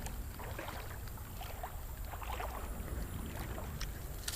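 River water sloshing and splashing, over a steady low rumble on the microphone.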